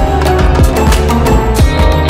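Background music with a steady beat and deep bass notes that slide downward.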